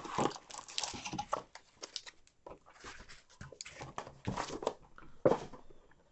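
Cardboard trading-card box being opened and foil card packs handled: irregular rustling and tapping, with a louder knock about five seconds in.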